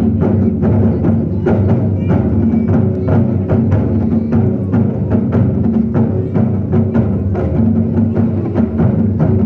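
Ensemble of large drums playing Zen drumming, a quick, steady run of strokes over a deep, sustained resonance.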